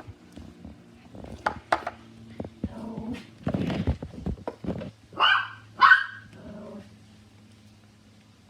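A dog barks twice in quick succession, a little past the middle, loud and short. Before that come scattered clicks and crackles, typical of slime being poked and squished.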